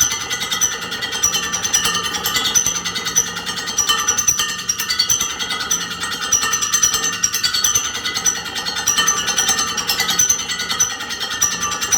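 Metal lathe taking a heavy roughing cut on a large cast iron impeller: a loud, harsh chattering screech from the cutting tool on the metal, rising and falling as the work turns.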